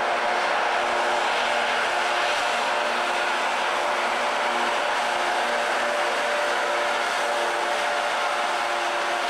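Class 92 electric locomotive passing with a train of vans: a steady hum with several held tones over a broad, even rushing noise.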